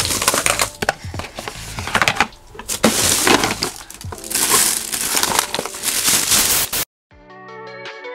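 Cosmetic bottles, jars and compacts clattering as they are tipped into a plastic bag, with loud crinkling of the bag and many sharp knocks. It cuts off suddenly about seven seconds in, and background music with a beat starts just after.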